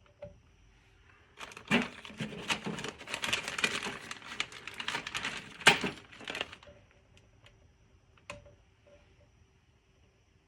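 Handling noise on a workbench: about five seconds of rustling and crinkling full of small clicks and rattles, with a sharp knock near the middle and a single click about eight seconds in.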